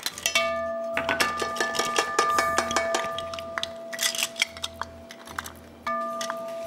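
A set of plastic measuring cups and spoons on a ring clattering as they are handled, a quick irregular run of light clicks and knocks.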